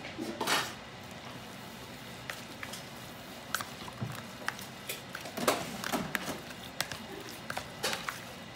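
A silicone spatula tossing and mixing chopped sturgeon laap in a plastic bowl: irregular soft wet squishing, light scrapes and small clicks against the bowl. A short burst of noise comes about half a second in.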